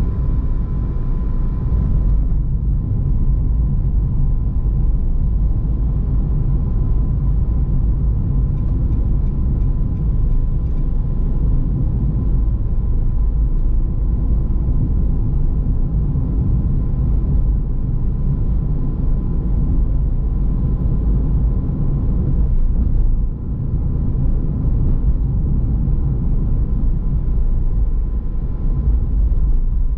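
Car driving along city roads: a steady low rumble of tyres and engine, with a faint steady whine above it and a brief easing about two-thirds of the way through.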